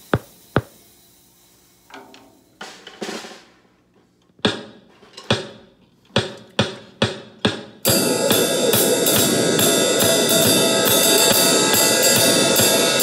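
Acoustic drum kit played: two sharp clicks at the start, then a few soft hits and single ringing drum strokes about half a second apart, and from about eight seconds in, continuous, louder full-kit playing with cymbals.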